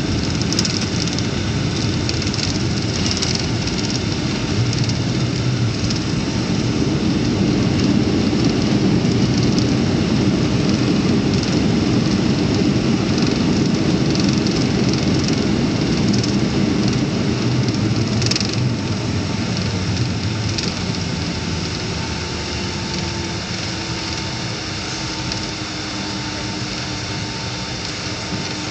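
Jet airliner's engines and wheels heard from inside the cabin during the landing roll on a wet runway: a loud rushing roar that swells through the first half, then eases as the plane slows. In the last third a steady engine whine emerges and glides slightly lower, with a single click about two-thirds of the way through.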